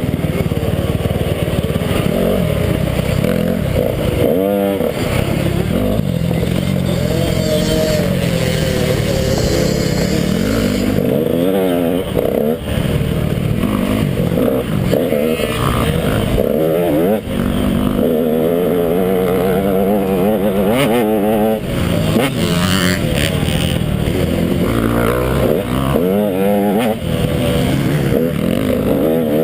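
KTM 150 XC two-stroke dirt bike engine, ridden hard off-road, revving up and dropping off again and again, its pitch rising and falling every second or so.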